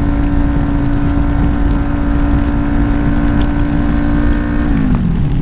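Kawasaki Ninja 400's parallel-twin engine holding a steady, high-revving note under loud wind rush. Near the end the revs fall away smoothly as the throttle is rolled off.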